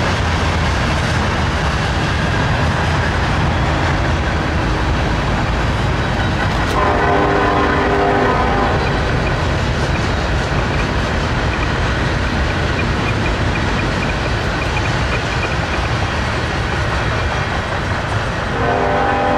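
Freight cars of a Norfolk Southern train rolling past: a steady low rumble with wheels clicking over rail joints. A locomotive horn blows for about two seconds around seven seconds in, and starts again near the end.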